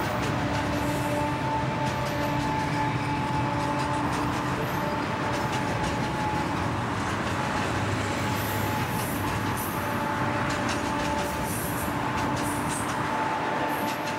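Freight train with several diesel locomotives moving along a curve: engine rumble and the rattle and clicking of wheels and cars, with a steady humming tone that fades in and out.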